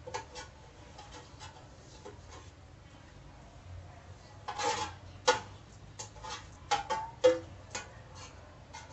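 Scattered clinks and taps against an aluminium saucepan of raw shrimp salad, a few of them ringing briefly, the loudest about five and seven seconds in.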